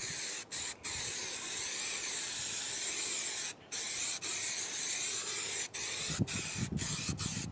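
Aerosol can of spray adhesive hissing in long sprays, broken by short pauses, with a few short spurts near the end.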